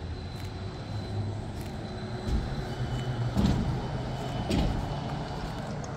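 Red articulated electric trolleybus driving past at close range: a steady low running hum with a faint high electric whine that steps down in pitch about halfway through. Two brief louder bumps come near the middle as it passes.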